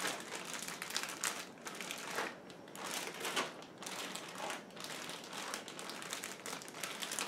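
Plastic gallon-size zip-top freezer bag crinkling in irregular rustles as the food inside is stirred around by hand.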